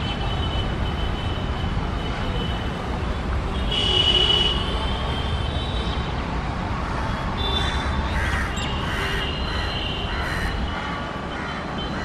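Steady low rumble of electric trains approaching, a WAP-4 electric locomotive with its express coaches and a suburban EMU. A brief high tone comes about four seconds in, and a string of short bird calls, about one every half second, comes in the second half.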